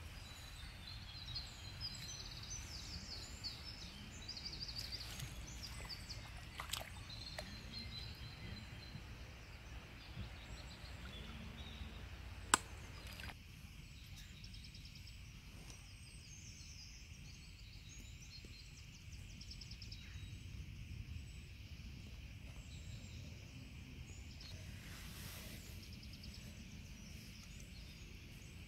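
Outdoor ambience at a pond: small birds chirping and singing over a steady low rumble of wind, with one sharp click about halfway through. The birdsong thins out after the click.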